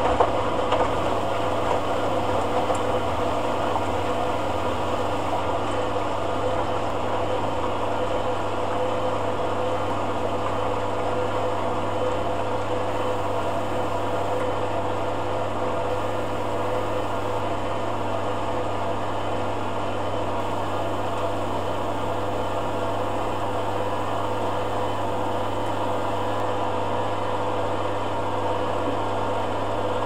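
Hoover A8506 washer-dryer running during a cotton rinse: an even, unchanging mechanical hum with a low drone under it.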